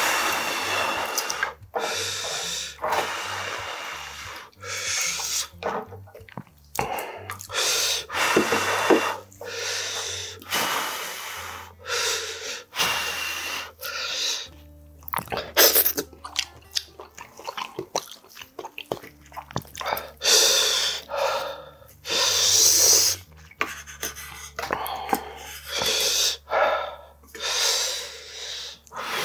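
Ramen noodles being slurped and chewed, in a string of noisy slurps about a second long with breaths between mouthfuls.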